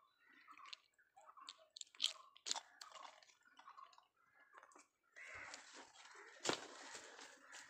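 Scattered crackling and clicking of leaves and stems being handled close by. About five seconds in, it turns to steadier rustling as someone pushes on foot through thick grass and undergrowth, with one sharp snap about six and a half seconds in.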